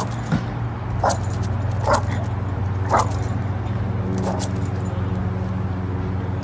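A dog giving short, high yips, about five of them roughly a second apart, over a steady low hum.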